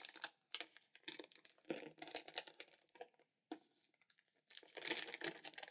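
Crinkling and rustling of plastic candy packaging as cotton candy is pulled out by hand, in irregular crackly bursts that get louder and denser near the end.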